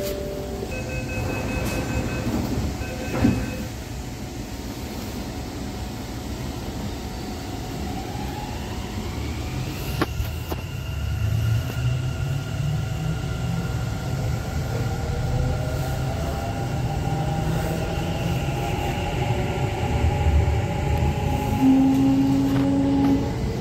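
Bengaluru metro train pulling out. A two-tone beeping and a sharp clunk in the first few seconds, as with the doors closing. Then the electric traction motors whine in several tones rising steadily in pitch over a growing rumble of the wheels as the train picks up speed.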